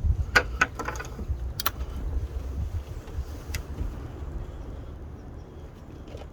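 A quick series of sharp clicks and knocks in the first couple of seconds and one more near the middle, over a steady low rumble that fades toward the end.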